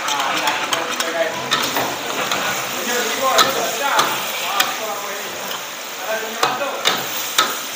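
Yellow noodles sizzling as they are stir-fried in a wok over a gas burner, with metal ladle and tongs scraping and several sharp clanks against the wok.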